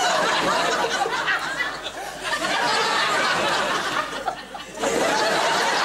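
Studio audience and panel laughing together, a dense mass of voices that eases off twice and swells again near the end.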